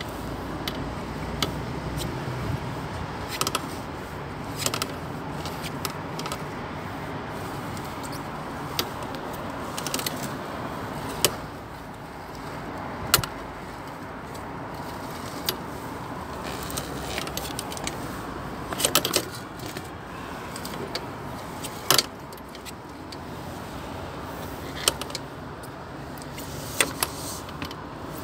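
Steel frame and cable reel of a push-rod sewer inspection camera clicking and rattling now and then as it is handled and the cable is fed out, over a steady background noise.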